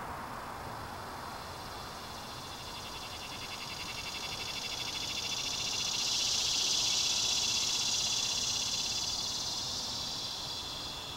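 A high, rapidly pulsing insect trill that grows louder a few seconds in, peaks midway and fades away near the end, over a steady background hiss.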